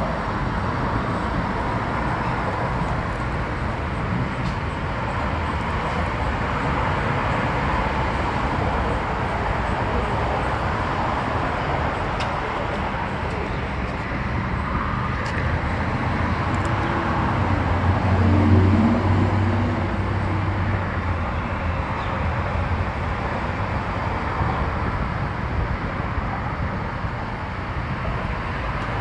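Steady outdoor street traffic noise, with one vehicle passing louder about two-thirds of the way through.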